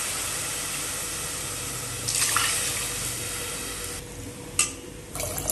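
Water pouring and splashing into a metal pot of soaked rice for kanji, steady for about four seconds, then a single short knock.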